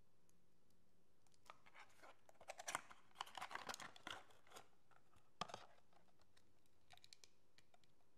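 Handling of a cosmetics box and a Dior cushion compact case: a quiet flurry of small clicks, scrapes and cardboard rustles as the box is opened and the case slid out, with one sharp click a little past five seconds in.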